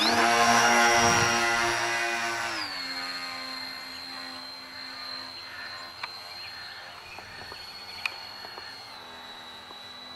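Electric motor and propeller of a radio-controlled model Islander airplane, a steady high whine as it flies low past. The whine drops in pitch about two and a half seconds in, then fades as the plane climbs away. It drops a little again near the end.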